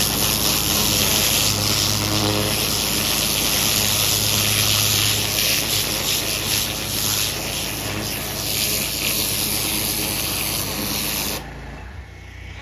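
Pressure washer running: a steady engine hum under the loud hiss of the high-pressure water spray. The spray hiss stops abruptly near the end, leaving a fainter engine hum.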